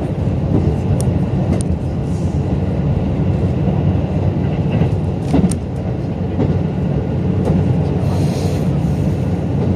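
Cabin noise of a JR Kyushu KiHa 185 diesel railcar running at speed: a steady low rumble of engine and wheels on rail, with a few sharp clicks and a brief hiss near the end.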